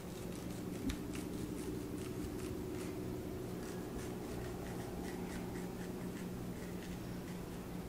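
Kitchen knife cutting lengthwise through a zucchini on a cutting board: faint cutting and scraping strokes, with a small knock about a second in, over a steady low hum.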